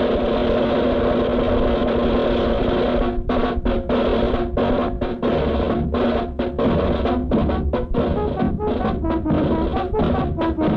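Marinera played by a brass band with drums and snare. For the first three seconds the band holds sustained chords, then it switches to short, punched chords with brief gaps between them.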